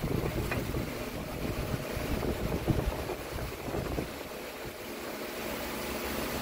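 Low rumbling wind noise on the microphone, heaviest in the first few seconds, with a couple of faint clicks of hands handling parts in the engine bay.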